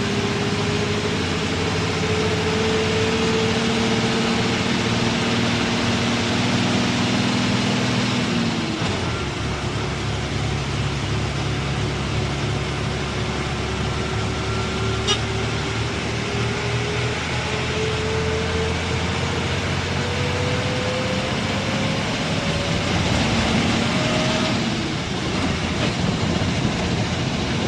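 Bus engine running under way with road noise. About eight seconds in the engine note drops, then a whine climbs slowly in pitch as the bus picks up speed. There is a single brief click near the middle.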